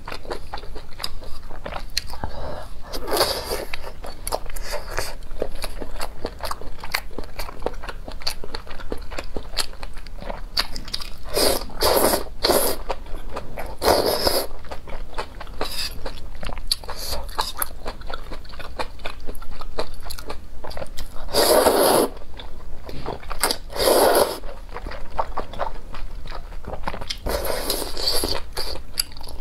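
Close-miked eating of spicy noodle soup: wet chewing and mouth clicks throughout, with about half a dozen louder, longer slurps as noodles are drawn in from the chopsticks.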